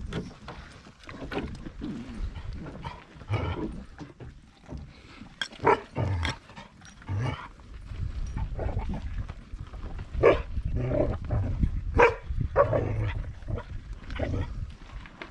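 A dog barking in short, scattered barks, the loudest about ten and twelve seconds in, over low rustling and handling noise.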